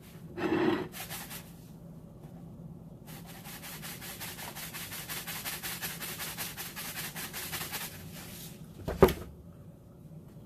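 Salt shaken from a cardboard canister of iodized table salt onto a plate of food: a short louder rasp near the start, then several seconds of rapid, even rattling of salt grains from the spout. A single sharp knock about nine seconds in as the canister is set down.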